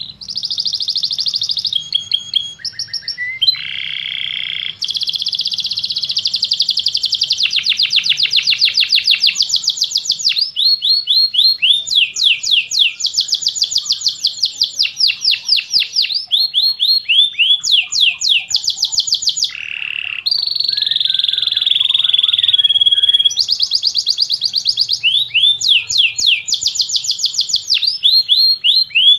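Domestic canary singing long rolling trills: fast runs of repeated high, rising notes, with short breaks between phrases and a change of phrase now and then.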